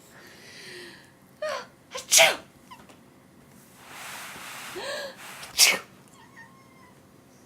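A person sneezes loudly twice, about three and a half seconds apart, each sneeze coming after a short breathy build-up.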